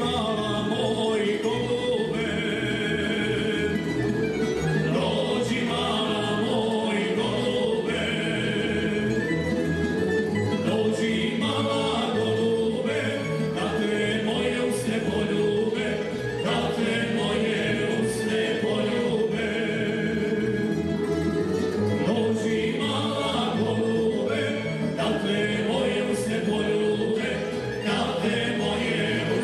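Tamburica band, several tamburicas and a double bass, playing a Croatian folk song while the men sing together.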